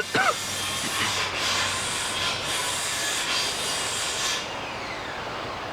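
Creek water rushing, with a harsher rasping noise over it that dips about once a second and stops about four seconds in, leaving a softer rush of water.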